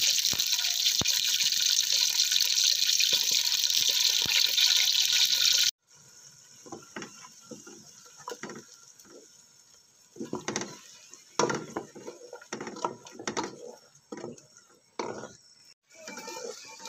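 Whole spices and lemongrass sizzling steadily in hot oil in a steel pot, cut off abruptly about six seconds in. After that comes quieter, irregular scraping and knocking of a wooden spoon stirring a ground paste in the pot.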